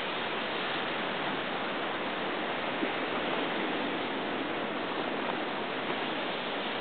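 Ocean surf washing steadily on a rocky shore, heard as an even hiss with no single wave standing out.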